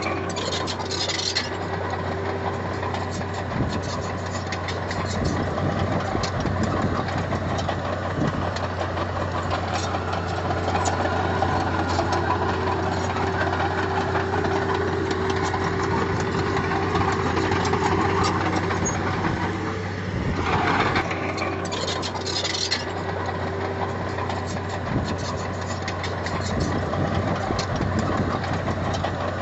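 A heavy-equipment diesel engine running steadily at an even pitch. Two short bursts of higher-pitched noise come through it, about a second in and again about twenty-one seconds in.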